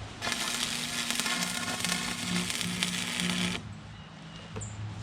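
Stick (arc) welder laying a weld on a buggy's shock hoop: a loud arc crackle and sizzle that starts abruptly just after the start and cuts off abruptly about three and a half seconds in, over a low steady hum.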